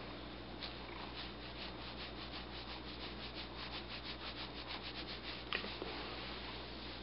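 Domestic tabby cat licking its fur close up, its rough tongue rasping in a quick, even run of strokes, about five a second. A short, sharp click about five and a half seconds in is the loudest moment.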